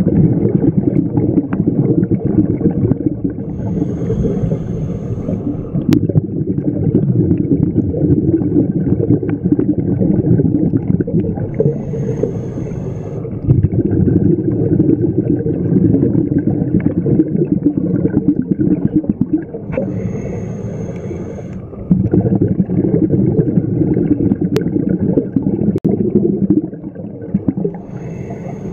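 Scuba regulator breathing heard underwater: long rumbling gurgles of exhaled bubbles, each broken by a short hiss of inhalation, about every eight seconds, four times over.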